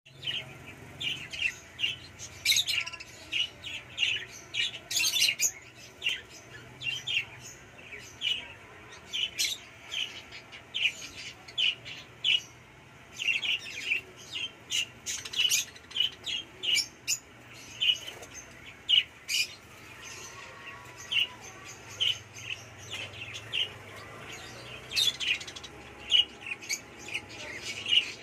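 Hagoromo (frill-back) budgerigars chirping in a cage: a steady run of short, sharp chirps in quick, irregular succession.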